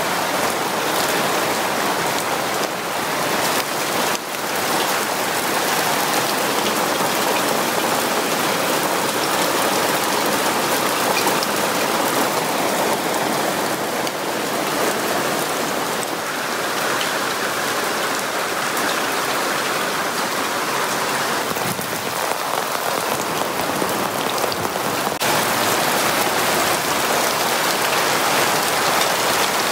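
Heavy monsoon rain pouring steadily on trees, paths and roofs: a dense, even hiss that shifts a little in tone a few times.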